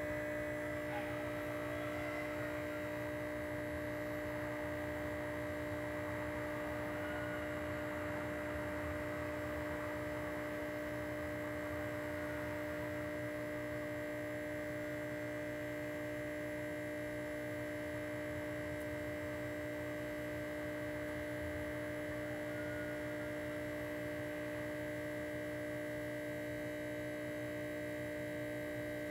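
A steady electrical hum made of several constant tones over a faint hiss, unchanging throughout.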